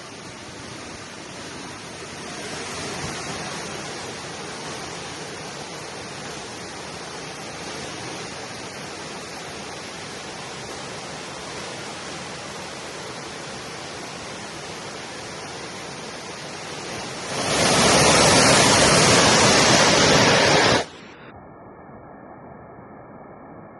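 Waterfall rushing steadily, much louder for about three seconds near the end. It then cuts off suddenly to a fainter, muffled sound with a couple of faint steady tones.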